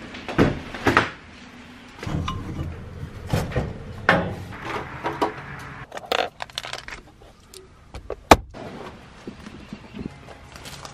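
Clicks, knocks and rattling from things being handled in a vehicle, including a hand rummaging in the centre console. A single sharp click about eight seconds in is the loudest.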